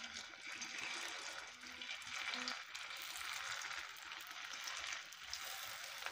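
Aloo-paneer pakora patties sizzling as they are laid one by one into hot shallow oil in a non-stick frying pan: a steady hiss that rises and falls.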